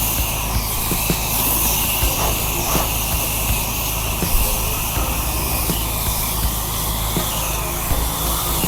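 Pressure washer engine running steadily, with a hiss of water spraying from the wand.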